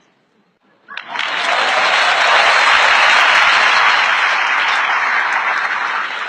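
Audience applauding, breaking out suddenly about a second in and slowly fading toward the end.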